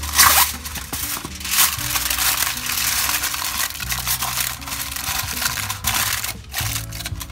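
Aluminium foil crinkling and crackling as hands press it down and crimp it around the edge of a dish. The crackle comes in repeated bursts, loudest about a quarter second in, with background music playing underneath.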